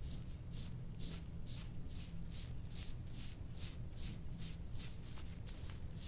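Metal scraping tool rasping in quick, repeated strokes over oiled skin, about three strokes a second.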